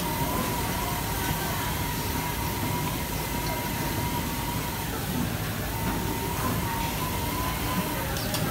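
FK Universal 8 automatic fabric cutting machine running as it cuts a stacked lay of fabric: a steady machine drone with a thin high whine that drops away around the middle and comes back a couple of seconds later.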